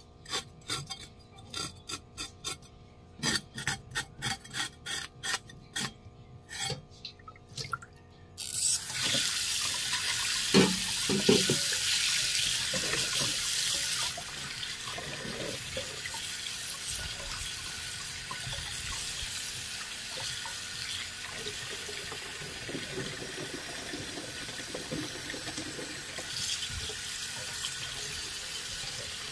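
A cleaver scraping scales off a yellowfin tuna tail in quick, repeated strokes. After about eight seconds a tap starts running into a steel basin, loud at first and then steadier and a little quieter, as water splashes over the fish.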